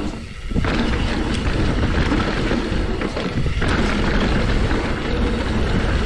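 Wind buffeting a chest-mounted action camera's microphone, mixed with tyre and trail noise from a mountain bike riding fast down a dirt singletrack. The rush jumps up sharply about half a second in and stays loud.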